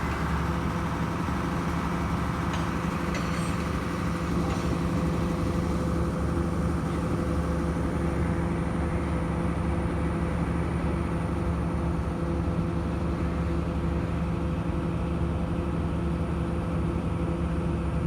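Engine of heavy construction machinery running steadily at constant speed, with a few faint clicks in the first few seconds.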